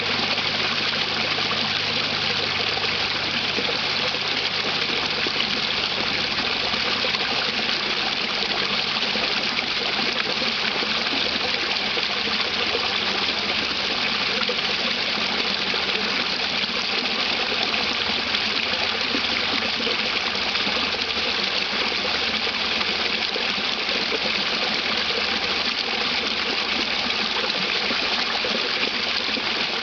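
Small creek waterfall: water pouring over a rock ledge and churning into the pool below, a steady rush with no break.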